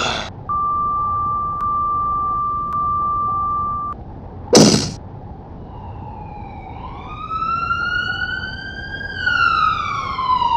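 A steady high tone held for about three seconds, then one loud sharp hit, then a police-style siren sound effect wailing in, its pitch rising slowly and then falling near the end as it grows louder.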